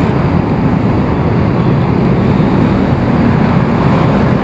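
Steady low rumble of wind buffeting a bike-mounted camera's microphone while riding a bicycle along a city road, with passing traffic mixed in.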